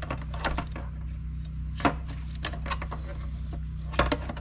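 Scattered clicks and knocks of a metal bracket and hard plastic parts being handled and fitted into a motorcycle fairing speaker lid, the loudest about two seconds in and near the end, over a steady low hum.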